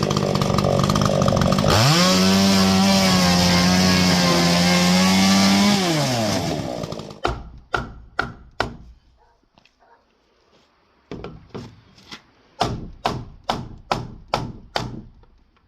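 Chainsaw engine revved up to full throttle about two seconds in, held steady for about four seconds, then let back down and falling away. This is followed by about a dozen sharp knocks at uneven spacing.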